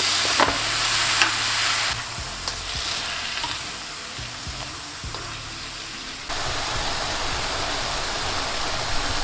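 Vegetables sizzling in hot oil in a wok as they are stir-fried, with a few light clicks of the utensil against the pan. The sizzle is louder for the first couple of seconds, drops back, and rises again about six seconds in.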